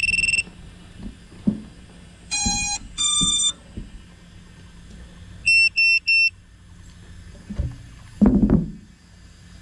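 Electronic beeps from an FPV drone and its mounted GoPro camera being readied on the ground: a short high beep, then two longer buzzy tones, the second higher, then three quick high beeps about halfway through. Light handling knocks are scattered through, with a louder rustling thump near the end.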